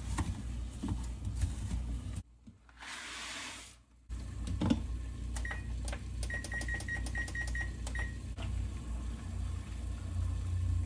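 A kitchen appliance's control panel beeping: a row of about seven short, even beeps at one pitch in quick succession a little past the middle, as on a microwave or oven keypad. Under it run a steady low hum and a few light clicks.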